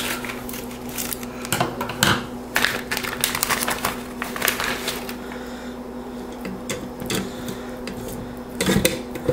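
Plastic bag crinkling and rustling in irregular crackles as raw beef ribs are handled and pulled out of it, over a steady low hum.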